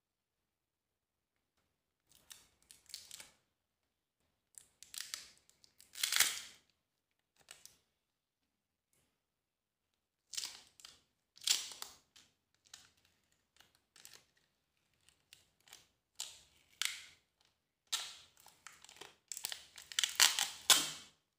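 Scattered scraping, rustling and clicking noises of hands and small tools handling an opened smartphone, coming in short irregular bursts, busiest near the end.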